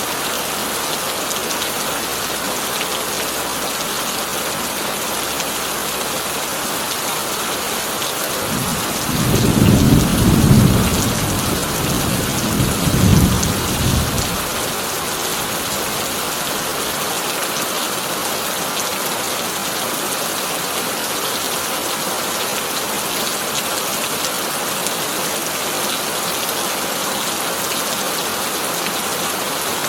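Heavy rain drumming steadily on a tin roof, with a low roll of thunder rumbling up about nine seconds in, swelling twice and dying away after about five seconds.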